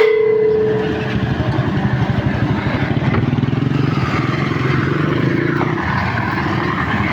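A combustion engine running steadily with a fast pulsing beat.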